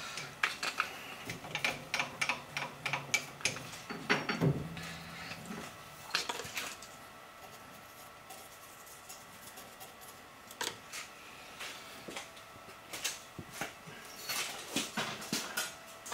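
Metal lathe drilling the bore of a boring-bar sleeve with a twist drill in the tailstock chuck: irregular metallic clicks and clinks of chips, with a faint low hum for a few seconds near the start.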